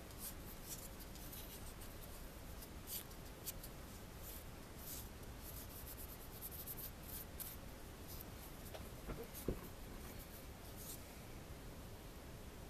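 Faint, irregular scratchy rubbing as a polishing pad buffs a liver-of-sulfur-darkened copper ring, with a single soft knock about nine and a half seconds in.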